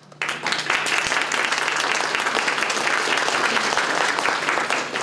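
Audience applauding after a talk, a dense steady clapping that starts a moment in.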